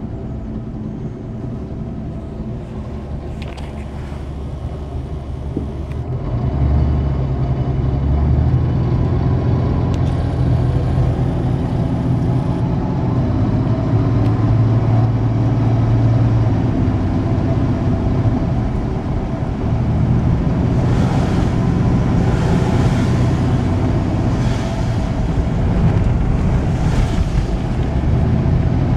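Truck engine and road noise heard from inside the cab while driving, growing louder about six seconds in and then holding steady.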